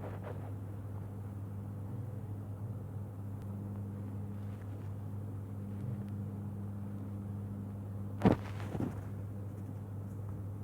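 Steady low hum, with a sharp knock near the end followed by a weaker one about half a second later.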